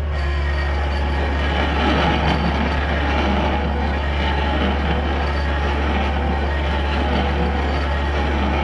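Excavator-mounted R-Top stump drill grinding down into a tree stump, with the mini excavator's diesel engine running steadily under hydraulic load beneath the irregular crackle of wood being cut.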